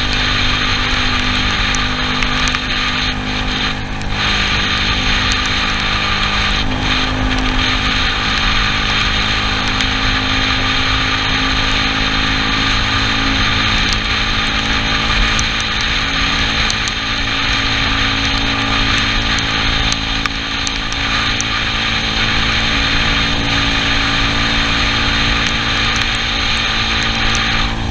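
Yamaha Cygnus scooter engine running under way, its low pitch shifting a little with the throttle, under a steady hiss from wind and tyres on the wet road.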